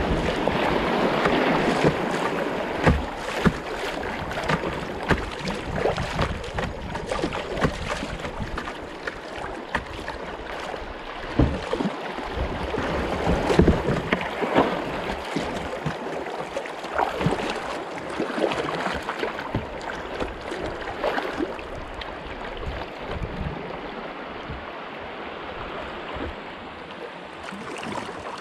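Moving river water rushing and splashing around a kayak hull, with frequent short, sharp splashes and knocks from paddling. Louder in the first few seconds and again around the middle, quieter near the end.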